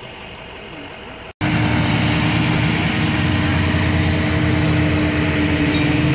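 Faint, even street background, then after a brief dropout about a second in, a flatbed tow truck's engine running loud and steady with a low hum and a held mid tone.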